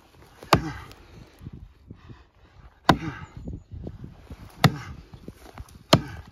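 A hatchet chopping into the base of a standing tree trunk: four sharp strikes into green wood, roughly one every one and a half seconds.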